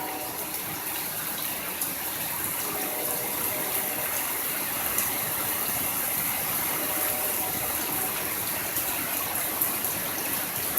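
Heavy rain pouring down: a steady hiss with many drops ticking on and around the microphone.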